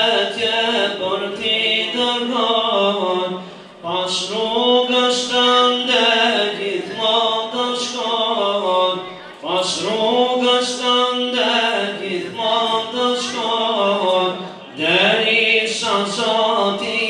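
A man singing an ilahi, an Islamic devotional hymn, solo and unaccompanied into a microphone. He sings in long phrases with sliding, ornamented pitch, with short pauses for breath about every five seconds.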